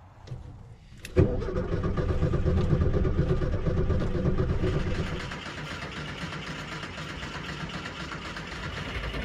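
1972 VW Super Beetle's air-cooled flat-four being cranked by its starter, beginning suddenly about a second in with a loud, pulsing turn-over that grows quieter and steadier about halfway through; the engine is flooded and struggling to start.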